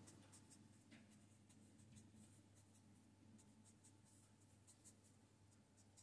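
Faint scratching of a felt-tip pen drawing short strokes on paper: quick, irregular little scrapes as letters and bonds are written.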